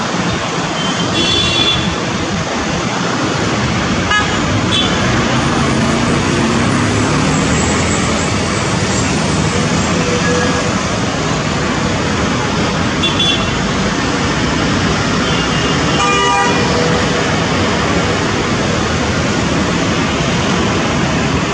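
Steady, loud engine and traffic noise with several short vehicle-horn toots, the clearest about two thirds of the way through.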